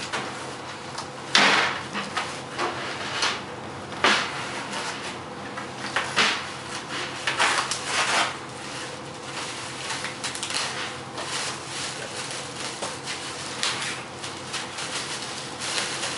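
Plastic bag and packing material rustling and crinkling by hand as a new 14x8 snare drum is unwrapped. The rustles come irregularly, with a few louder scrapes and handling knocks, the sharpest about a second and a half in and again about four seconds in.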